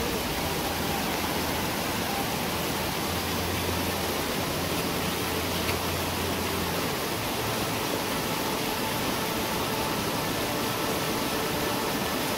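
Muddy floodwater of a swollen mountain stream rushing over rocks and gravel: a steady, unbroken rushing. The stream is in spate after heavy monsoon rain.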